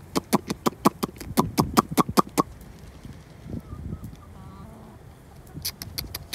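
A person calling chickens with a fast run of sharp clicking sounds, about six a second, that stops after a couple of seconds and starts again briefly near the end. Soft hen calls come in between.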